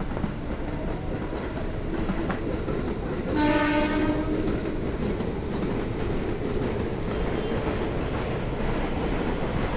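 Electric commuter train running along the tracks with a steady rumble, and one short horn blast a little over three seconds in.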